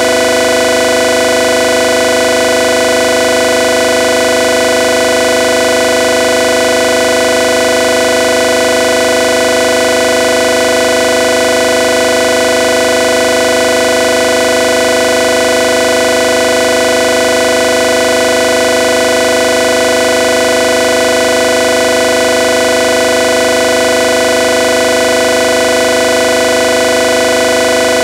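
Loud, steady electronic drone: several pitches held without any change, with no beat or rhythm.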